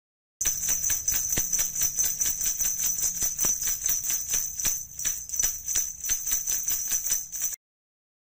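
Small bells jingling in a steady rhythm, about five shakes a second. The jingling starts half a second in and cuts off suddenly about a second before the end.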